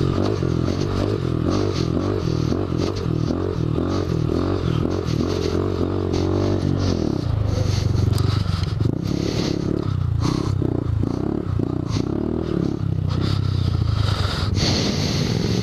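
Honda Grom's small single-cylinder four-stroke engine running as it is ridden over a sandy dirt trail, its revs rising and falling and dropping about seven seconds in, with wind and tyre noise on the camera.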